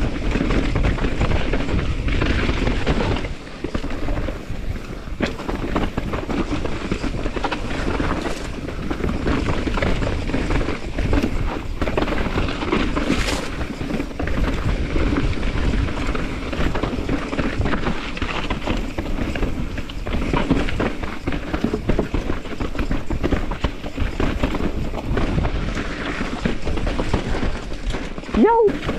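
Mountain bike riding over a rocky, gravelly trail: tyres crunching and clattering over rock and loose stones, the bike rattling with the bumps, over a steady rush of wind noise.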